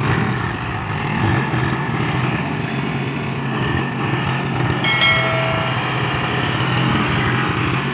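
Tractor diesel engine running steadily under load as the cage-wheeled tractor churns through deep, waterlogged mud. A couple of sharp clicks and a short ringing tone come about five seconds in.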